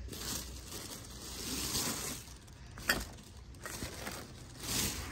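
Plastic shopping bags rustling as groceries are handled, swelling twice, with one sharp click about three seconds in.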